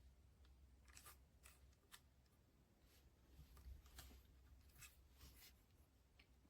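Near silence with a faint low hum and a scattering of faint, short clicks, a freshly sharpened kitchen knife slicing a tomato and touching the cutting board.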